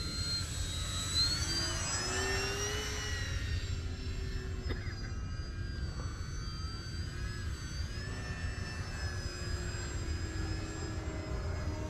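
Radio-controlled model airplane's motor and propeller whining in flight, the pitch gliding up and down with throttle changes and passes, with a second whine crossing it at times. Low wind rumble on the microphone underneath.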